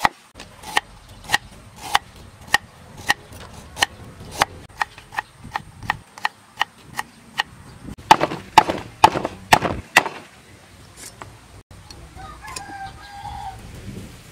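Kitchen knife chopping through sliced root on a wooden chopping block, sharp knocks a little under two a second, then a louder, quicker run of knocks about eight seconds in. Near the end a chicken gives a short call.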